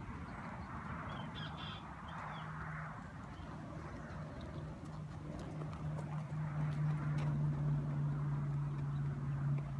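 Outdoor ambience with birds calling and a steady low hum that grows louder in the second half.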